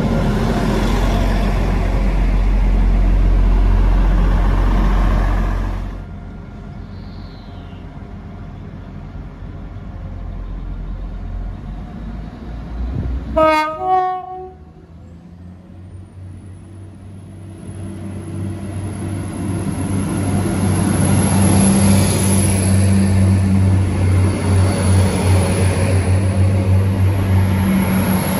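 A Class 175 diesel multiple unit's low rumble as it moves past, cut off about six seconds in. About halfway through, the approaching Class 175 gives a short horn toot. Then its diesel engines run with a steady hum and a high whine that rises and holds as it draws in alongside.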